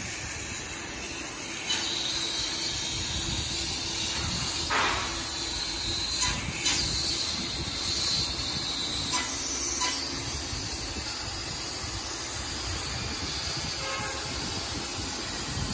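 CNC laser cutting machine cutting 15 mm steel plate: a steady hiss from the cutting head with the machine running, broken by a few short crackles.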